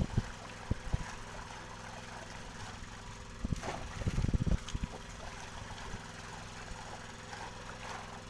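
A small engine running steadily at idle, with a few splashes and knocks as a long-handled scoop net is dipped into the sea, the biggest cluster about four seconds in.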